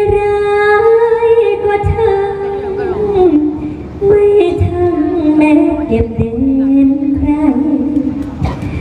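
A woman singing solo in long held notes that slide and step downward in pitch, with a few low thuds beneath the voice.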